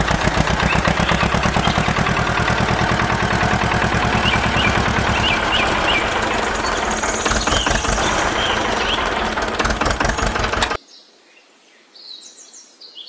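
Tractor engine running with a rapid, even knocking beat, cutting off suddenly near the end. Birds chirp throughout and carry on alone after the engine stops.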